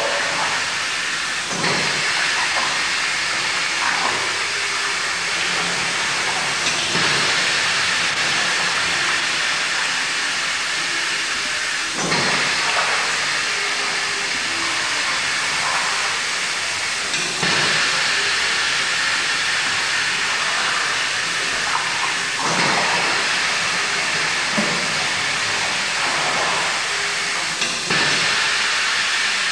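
Curds and whey churning in a rectangular cheese vat as its mechanical stirrer moves through them. The sound is a steady hissing rush that swells about every five seconds.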